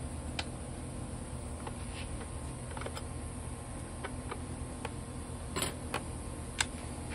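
Light, irregular clicks and ticks of a screwdriver working screws out of the plastic engine shroud of a STIHL FS 200 string trimmer, with a brief scrape a little after five seconds and a sharper click near the end, over a steady low background rumble.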